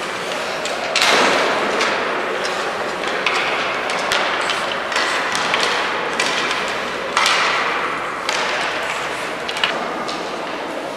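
Ice hockey play on a rink: skate blades scraping the ice, with many sharp clacks and knocks of sticks and puck. The scraping rises suddenly twice, about a second in and again near seven seconds.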